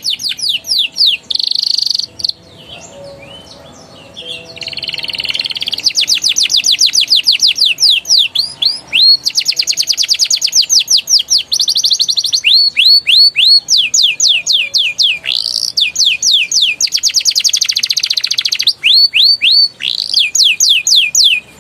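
A young domestic canary singing in long rapid trills and rolls, each run a fast string of the same sweeping note repeated about ten times a second. The song breaks off briefly about two seconds in, then resumes in successive trills of different notes.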